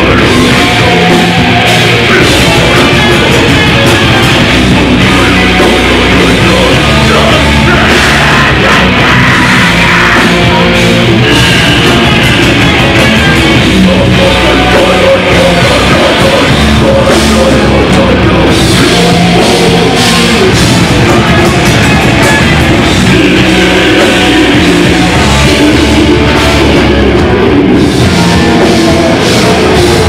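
Live heavy metal band playing at full volume: distorted electric guitars, bass and drum kit in a dense, unbroken wall of sound.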